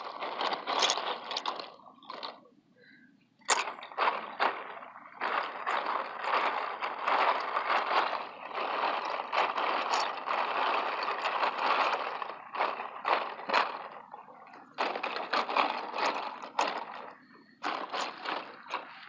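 Plastic LEGO bricks clattering and sloshing in a plastic tub of hydrogen peroxide as a rubber-gloved hand pushes them down and shifts them between tubs. There is a short lull about two seconds in.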